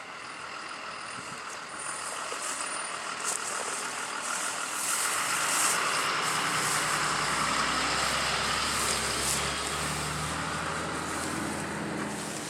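A motor vehicle driving past: engine and road noise swell over several seconds, hold, then fade toward the end.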